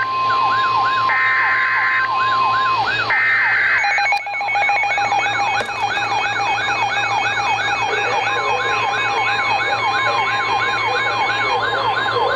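Emergency Alert System header data bursts, two short screeching digital blasts about a second apart, then a steady NOAA Weather Radio alert tone, layered over a siren that wails up and down quickly, about two to three times a second.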